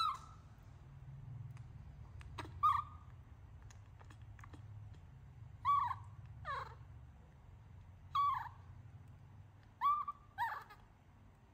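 Baby monkey giving short coo calls, about seven, each a quick rise and fall in pitch, spaced a couple of seconds apart with two coming in quick pairs near the middle and the end.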